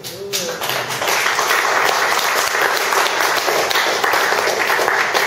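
Audience applauding: the clapping builds over the first second and holds steady.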